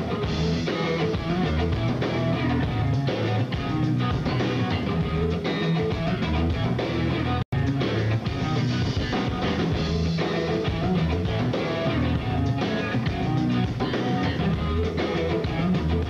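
Live rock band playing, with electric guitar, bass and drum kit. The sound cuts out completely for a split second about halfway through.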